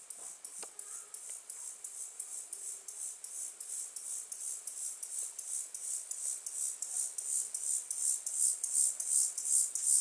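Field cricket (Gryllus campestris) chirping: a steady run of short, high chirps, about four a second, growing louder toward the end.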